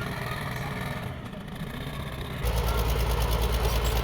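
Bulldozer's diesel engine running. About two and a half seconds in, it becomes suddenly louder, with a rapid, even low pulsing.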